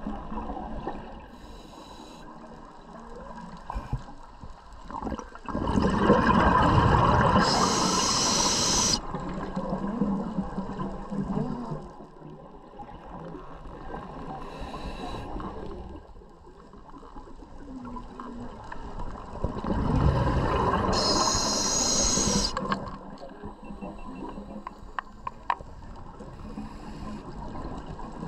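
Scuba diver breathing through a regulator underwater: two long breaths about fourteen seconds apart, each a hiss and a loud rush of exhaled bubbles. Between the breaths is a steady underwater background hiss.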